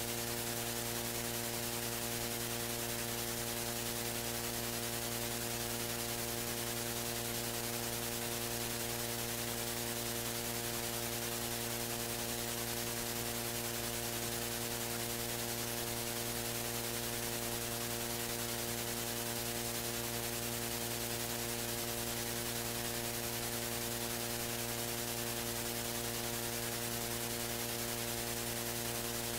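Steady electrical mains hum with a layer of hiss and no other sounds standing out.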